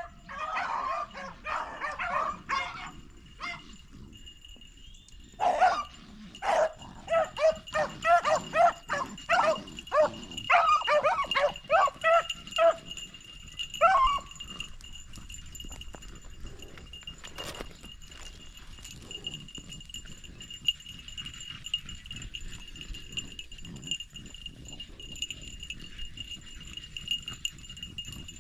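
Beagles baying on a rabbit's scent trail: a burst of calls, a short pause, then a longer run of quick calls before the pack goes quiet about halfway through. A steady high-pitched whine runs behind.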